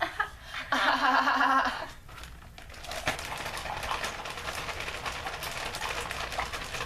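A short held vocal note about a second in, then steady soft crinkling and clicking of a plastic gallon bag being handled and squeezed.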